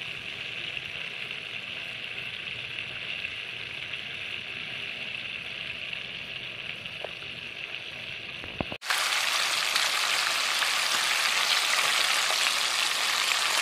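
Flour-coated chicken pieces deep-frying in hot cooking oil: a steady sizzle and bubbling. About nine seconds in it cuts abruptly to a louder, brighter sizzle.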